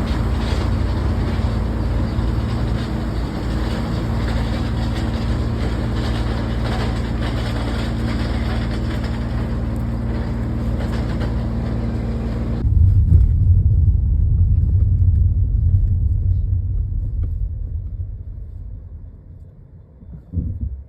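Steady rumble of a motor vehicle with a low hum. About twelve seconds in it changes abruptly to a deeper rumble, which fades away near the end.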